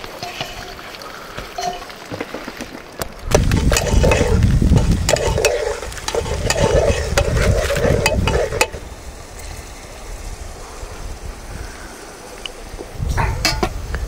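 Cooking in a pot: a spoon stirring and knocking against the pan, food frying, and utensils clinking. A loud low rumble runs from about three seconds in to past eight seconds, and there are a few more sharp knocks near the end.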